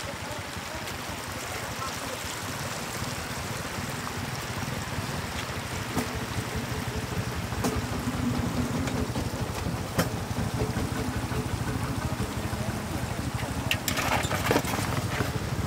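Shallow floodwater running steadily across the ground, with a few sharp splashes and knocks from the wicker basket and the catfish in it, more of them near the end.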